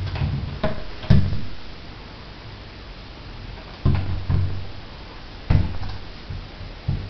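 Hamster exercise ball rolling on a hardwood floor and bumping against a door and baseboard: a low rolling rumble broken by several knocks, the sharpest about a second in.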